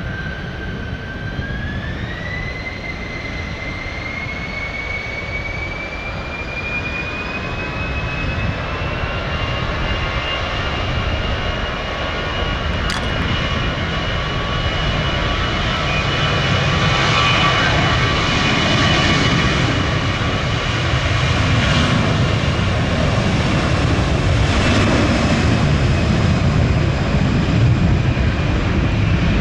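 Jet airliner's turbofan engines spooling up: a whine rises in pitch over the first several seconds and then holds steady, over a low rumble that grows louder.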